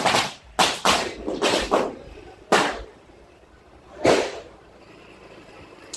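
A quick, irregular run of sharp bangs in the first second and a half, then two louder single bangs with a short echo, about two and a half and four seconds in.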